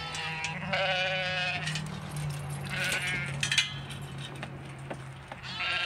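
Lambs bleating: one long call about half a second in, a shorter one around three seconds, and another starting right at the end, over a steady low hum.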